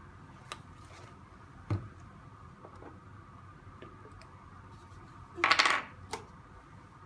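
Lab bench handling noises as bottles and glassware are put down and opened: light clicks, a soft knock about two seconds in, and a louder brief clatter of glass and a plastic screw cap a little after five seconds.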